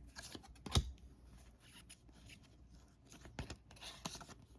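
2021 Panini Donruss football trading cards being handled and slid one behind another, with soft scrapes and rustles and a sharp click a little under a second in, then a few more clicks near the end.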